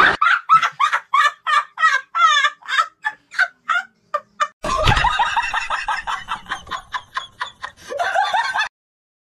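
A quick run of high cackling calls, about four a second. It thickens into a denser layer about halfway through and stops abruptly near the end.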